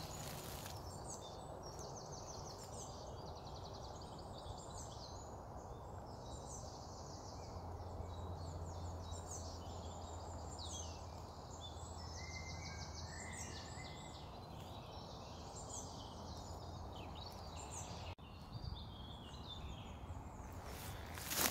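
Woodland birds singing, several songs overlapping in short chirps and trills, over a steady outdoor background hiss, with a low hum through the middle stretch.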